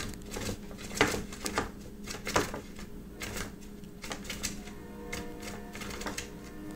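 Irregular clicks and taps, loudest about a second in and again near two and a half seconds, over background music with steady held notes.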